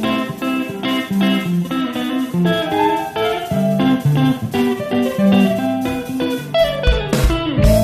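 Instrumental break of a band-arranged pop-rock song: a guitar plays a melodic line of single notes over bass, with a sliding figure near the end.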